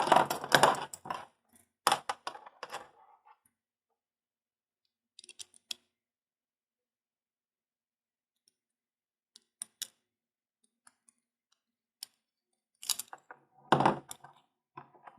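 Sharp clicks and light metallic clinks of a 3D-printed caseback tool, fitted with metal bits, working against a wristwatch's screw-down case back as it is turned loose. There is a quick run of clicks at first, then scattered single clicks, and a few louder ones near the end.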